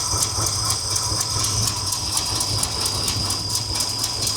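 1970 Chevy C20's 454 big-block V8 idling, with a fast, even ticking from the valvetrain: a rocker arm still loose on its hydraulic lifter and needing more preload.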